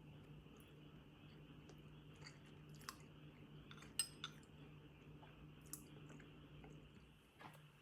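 Quiet chewing with scattered small clicks, the sharpest two about four seconds in, over a faint steady low hum.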